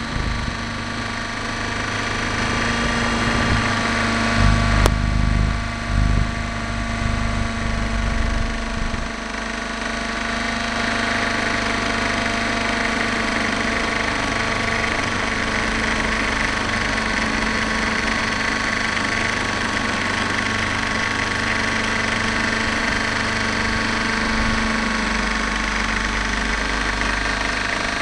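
X-Cell 60 radio-controlled helicopter's nitro glow engine and rotor drivetrain running steadily in flight, recorded from on board the helicopter, with a whine of several fixed tones. A rougher low rumble during the first several seconds settles into a steadier sound, and there is a single sharp click about five seconds in.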